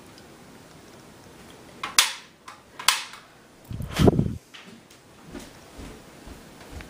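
Kitchen handling noises: two sharp clicks about a second apart, then a dull thump, followed by a few faint light knocks.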